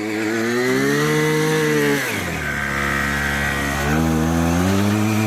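Mini bike's small gasoline engine running under throttle: its pitch climbs in the first second, drops back about two seconds in, then climbs again about four seconds in.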